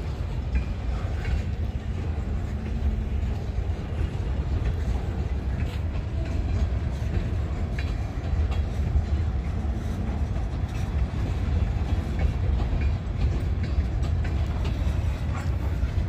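A train's cars rolling past: a steady low rumble with faint clicking of the wheels.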